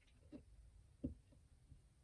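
Near silence: room tone, with two faint short clicks about a third of a second and a second in.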